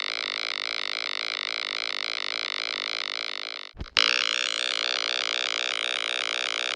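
Aerial crane (heavy-lift helicopter) sound effect: a steady pulsing rotor drone with a buzzy, synthetic tone. It cuts off suddenly with a click about four seconds in, then a similar pulsing drone starts again.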